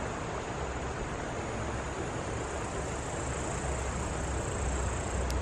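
Steady outdoor night ambience: an even rushing noise with a thin, steady high whine above it. A low rumble swells near the end.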